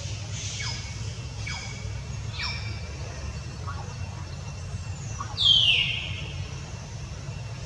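Kitten mewing: several short, high calls falling in pitch, the loudest about five and a half seconds in, over a steady low hum.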